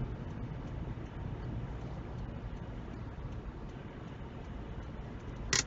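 Steady low engine and road rumble inside a car's cabin as it slows in queueing traffic, with one short, sharp click near the end.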